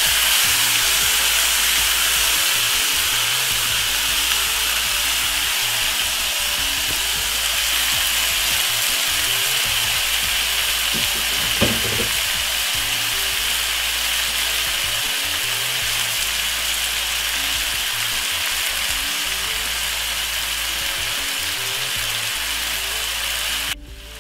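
Marinated chicken pieces sizzling steadily in a hot pot with garlic and onion. There is a brief knock about halfway through, and the sizzle drops off suddenly just before the end.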